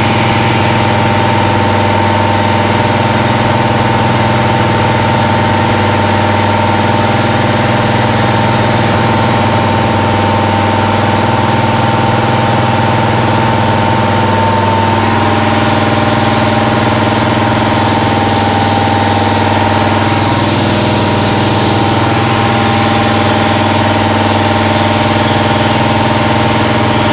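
1995 Haas VF-3 CNC vertical mill running a cut, its spindle turning a cutter in a metal part under a spray of flood coolant: a loud, steady machine hum with several held tones over a hiss. The tones change pitch about halfway through and again a few seconds later, as the toolpath moves on.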